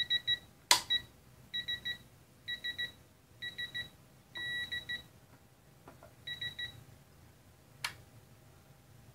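Electronic torque wrench set to 42 ft-lb beeping as the motorcycle's rear axle nut is tightened: quick bursts of about three high beeps roughly once a second, with one longer beep about halfway through. A sharp click about a second in is the loudest sound, and a second click comes near the end.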